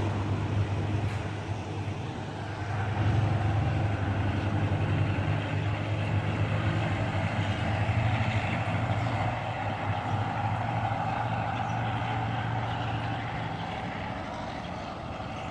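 Diesel train's engine running with a steady low hum, getting quieter over the last few seconds as the train pulls away.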